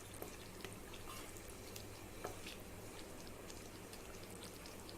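Chicken gravy simmering faintly in the pan, with small scattered pops and bubbles.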